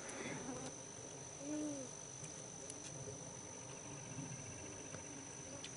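Insects singing a steady, high-pitched drone. A short, faint rising-and-falling hum comes about a second and a half in.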